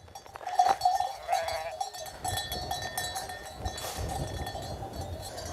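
Metal livestock bells clanking irregularly as the sheep flock moves. Many strokes overlap into a steady ringing jangle that grows loud within the first second.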